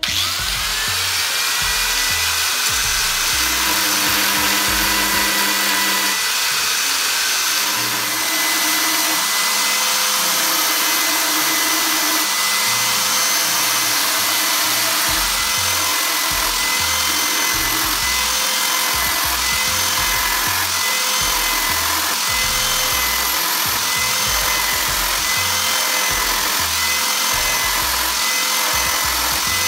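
Angle grinder with a diamond grinding disc starting up, its whine rising over the first second, then running steadily while it sharpens the teeth of a worn circular saw blade. Background music with a steady beat plays underneath.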